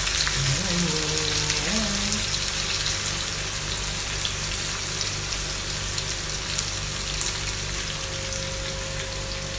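Salmon steak and green beans sizzling in oil in a nonstick frying pan, a steady hiss that eases off slightly, over a low steady hum.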